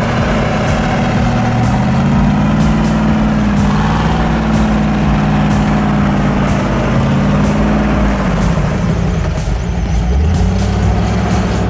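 Off-road vehicle engine running under load: it revs up about two seconds in, holds for several seconds, then eases off and settles to a lower, steady run near the end.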